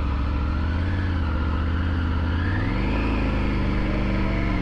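Triumph Tiger 900 GT's three-cylinder engine running under way as the motorcycle is ridden; about halfway through the engine note rises and then holds steady at the higher pitch.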